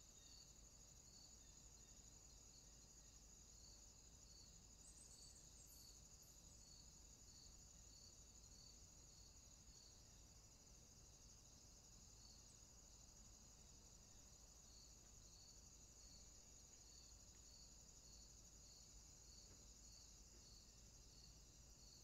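Faint chorus of insects: a steady high trill with a regular chirp repeating about twice a second.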